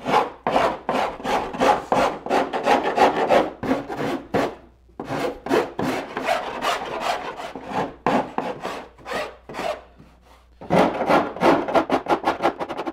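Hand rasp filing the wooden inside edge of a cedar-strip kayak's cockpit opening, rounding the corner from the deck underside into the riser: quick rasping strokes, about three a second, with two short pauses.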